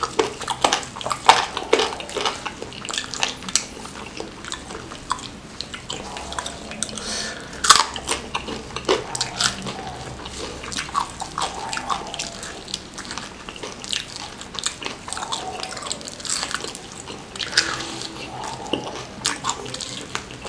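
Close-miked mouth sounds of a person biting and chewing fried chicken smothered in chilli sambal: wet, sticky chewing with many irregular sharp smacks and clicks.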